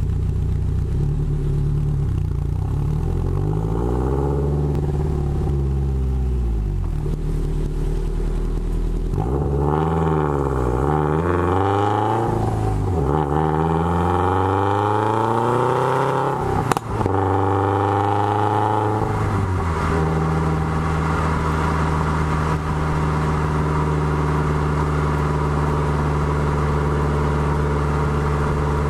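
2013 Subaru WRX turbocharged flat-four on equal-length headers and a Maddad turboback exhaust, heard right at the tailpipes: idling, revved once, then blipped several times higher with one sharp pop, then settling back to a steady idle.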